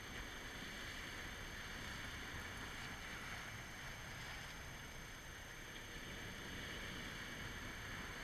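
Steady wash of sea surf breaking on rocks, mixed with wind.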